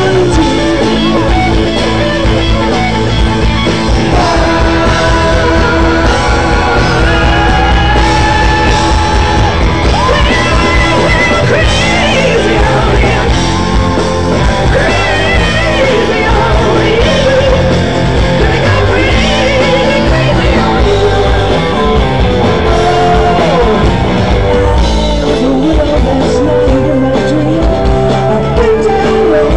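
Live rock band playing loud, heard from the audience: a woman singing lead with held, wavering notes over guitars, bass and a steady drum beat.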